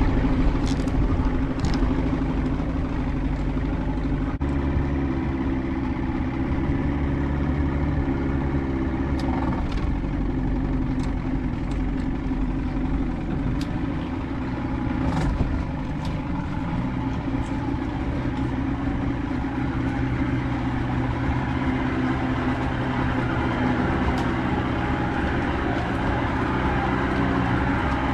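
Boat motor running steadily, its engine note shifting a few times.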